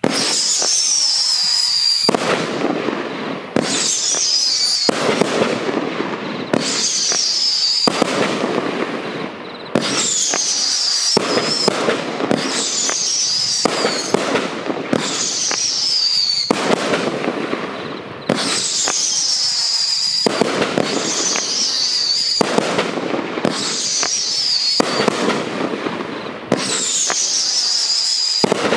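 A 42-shot, 500-gram firework cake firing shot after shot, about one every second and a half. Each shot has a whistling tail that falls in pitch, over dense crackling from the flying stars.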